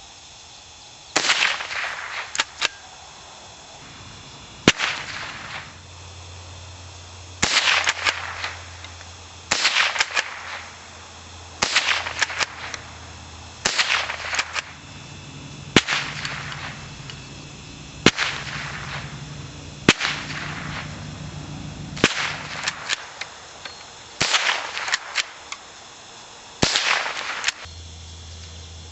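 Browning BL-22 lever-action rifle firing .22 long rifle, about a dozen sharp shots roughly two seconds apart, each followed by the clack of the lever being worked to chamber the next round.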